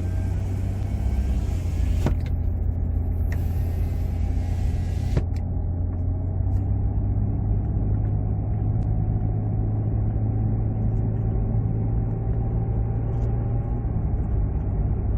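Ford Escape driving, heard from inside the cabin: steady road noise with a low rumble and no humming, now that the rear driveshaft is removed. The owner takes this to mean the hum came from a bearing in the transaxle, loaded by the driveshaft's torque.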